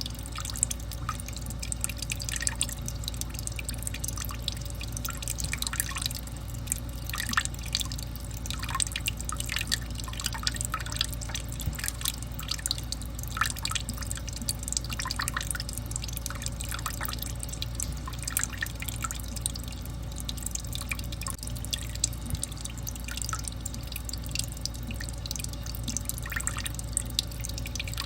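Water drizzling and dripping: many small, irregular drops splashing, with a steady low hum underneath.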